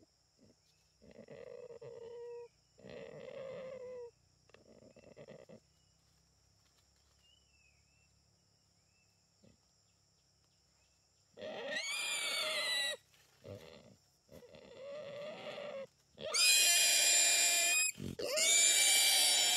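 Wild boar squealing in a series of calls: three shorter, quieter squeals in the first few seconds, then after a pause four loud, drawn-out squeals of about a second and a half each.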